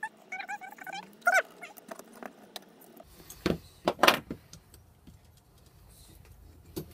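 A dog whining in short pitched calls for the first second or so. Then a few sharp clinks and knocks of aluminium servo brackets and a screwdriver being handled and set down, the loudest about four seconds in.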